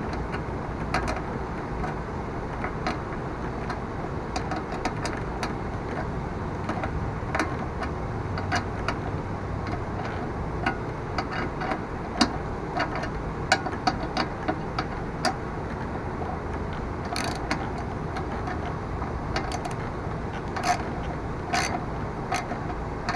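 Irregular light clicks and metallic ticks of hand tools working on a mower's throttle cable clamp as it is tightened, with a few sharper ringing taps near the end, over a steady low shop hum.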